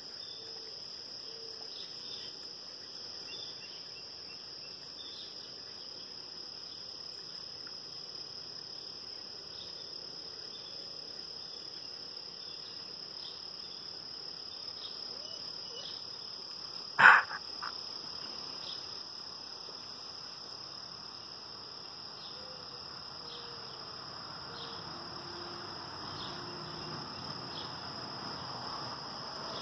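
A steady high-pitched chorus of insects trilling in a grassy field. A single sharp click cuts in about halfway through.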